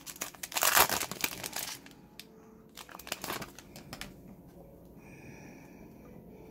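Foil trading-card pack wrapper crinkling as it is handled and the cards are pulled out. It is loudest for the first two seconds, with a shorter rustle about three seconds in, then only faint card handling.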